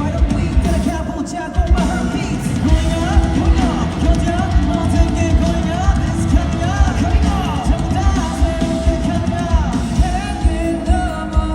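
Rock band playing live, loud, with a steady drum beat under a wavering sung melody.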